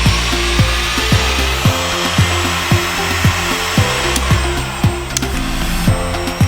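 Background music with a steady beat, about two thumps a second, over the steady rushing hiss of a heat gun blowing air.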